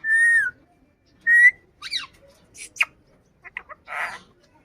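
Pet parrot whistling two loud notes in the first second and a half, then a string of short chirps and a harsh squawk near the end.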